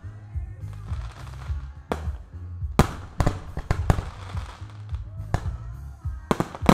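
Aerial firework shells from a professional display launching and bursting in a string of sharp booms. One comes about two seconds in, several follow in quick succession, and a dense cluster near the end is the loudest.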